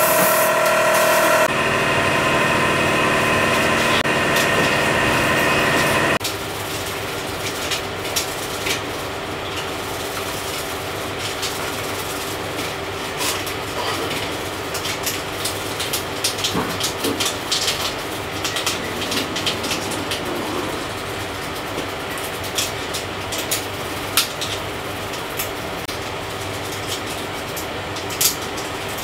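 Aerosol spray can hissing for about a second and a half, then a steady hum that stops abruptly about six seconds in. After that, a toothbrush scrubs plastic model parts in a water-filled stainless steel tray to clean off rust, with many small scratches and clicks over a low steady hum.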